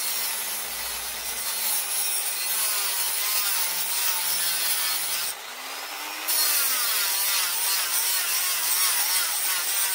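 A blade cutting steadily through the ear of a stainless steel hose clamp, a continuous grating, rasping noise with a faint whine that wavers up and down in pitch. The cut is on its last bit, nearly through the tough stainless steel.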